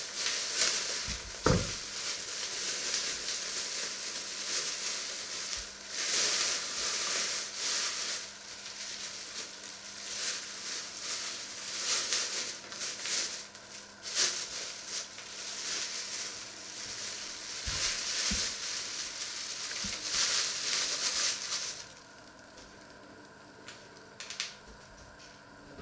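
Food frying in a lidded enameled cast-iron casserole on the hob: a steady crackling sizzle that rises and falls, then cuts off abruptly about four seconds before the end. A brief plastic-bag rustle follows near the end.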